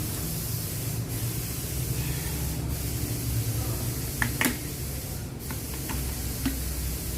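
Steady hissing noise with a low hum beneath it, and a few sharp metallic clinks about four seconds in and once more near the end.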